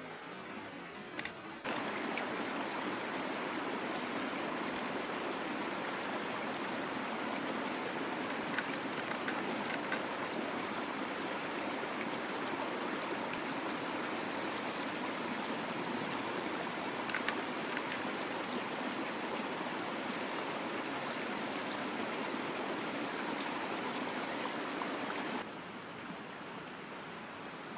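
A steady rushing noise, like running water, that starts abruptly about two seconds in and cuts off shortly before the end, with a few faint ticks.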